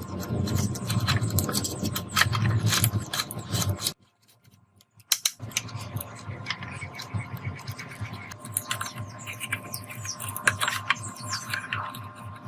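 Irregular clicks, light knocks and scraping from small parts and tools being handled, cut off by a brief silence about four seconds in.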